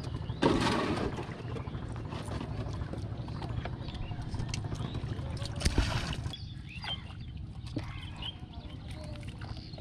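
Wind rumbling on the microphone and water lapping around a small wooden boat, with two louder rushing gusts, about half a second in and near six seconds.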